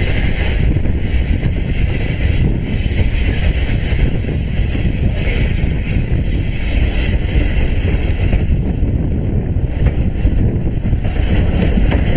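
Heavy wind buffeting the microphone out of a moving steam train's window, over the train's steady running rumble.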